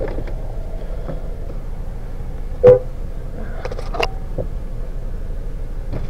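Steady low rumble of road traffic, with one short loud sound about two and a half seconds in and a few faint brief sounds a second later.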